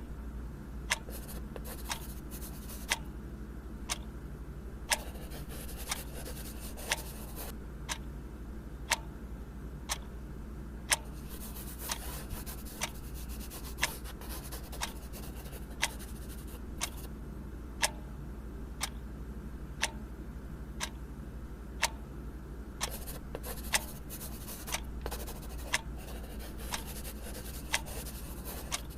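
A clock ticking about once a second over a steady low hum, with a few stretches of faint scratching.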